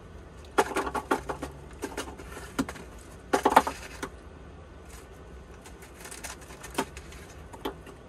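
Scattered clicks and knocks over a low steady hum, bunched into two short flurries about half a second in and about three seconds in, with a couple of single knocks near the end.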